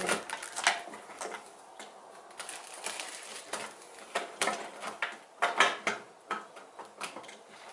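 Hands handling a plastic-wrapped headlight housing and small parts, giving irregular clicks, taps and crinkling of the plastic.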